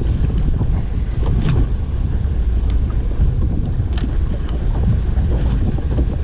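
Steady low rumble of wind buffeting the microphone on an open boat, with water moving against the hull and a couple of sharp clicks.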